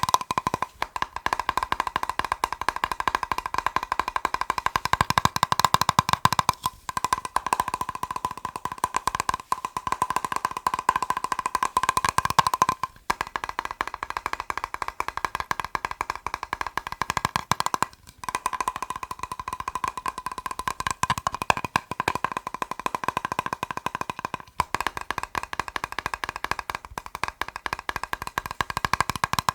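Fast tapping on a plastic box: a dense, continuous run of quick taps, broken by several brief pauses.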